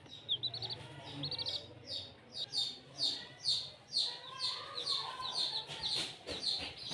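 Chicks peeping: quick runs of short, high cheeps in the first second or so, then a steady string of high peeps that each slide downward, about two a second.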